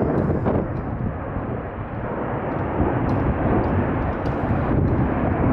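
Formation of F-16 fighter jets passing overhead at a distance: a steady rushing jet roar with a deep, uneven rumble underneath.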